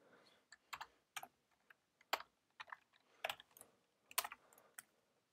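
Typing on a computer keyboard: about a dozen quiet, irregularly spaced keystrokes as a line of code is entered.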